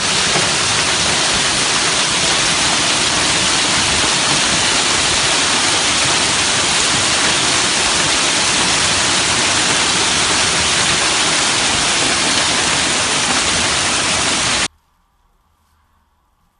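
Heavy hail and rain pelting a street and parked cars in a dense, steady hiss. It cuts off suddenly near the end, leaving near silence.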